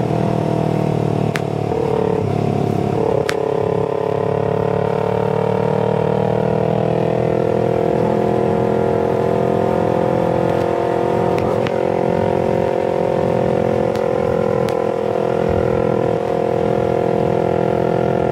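Parallel-twin sport bike engine cruising on the road, its pitch rising gently a few seconds in as the bike picks up a little speed, then holding steady, with wind rumble underneath.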